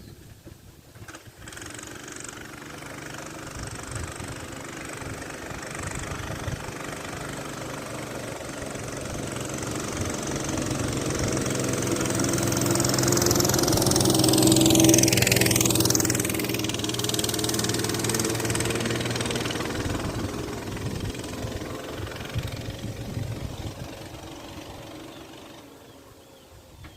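Mini bike's small engine running as the bike rides past: it grows steadily louder, passes closest about halfway through with a drop in pitch, then fades away.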